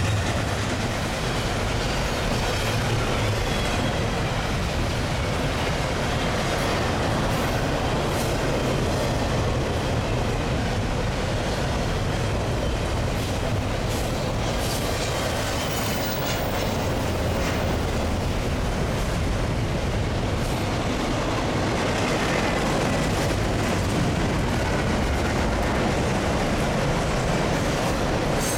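Double-stack intermodal container train rolling past: a steady rumble and clatter of steel wheels on rail from the passing container cars, with faint wheel squeals now and then.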